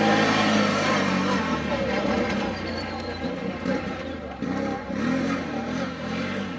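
Quad bike (ATV) engine at full throttle launching off the start line, then fading as it pulls away, its pitch rising and falling with the throttle.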